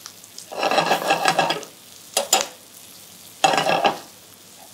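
Flour-dusted pork fillet medallions searing in butter in a frying pan over high heat: a steady sizzle, with three louder bursts of sizzling and scraping as a utensil shifts the pieces in the pan, the first lasting about a second.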